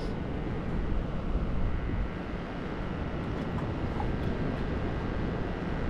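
Steady low rumble of wind buffeting the microphone, mixed with the wash of ocean surf.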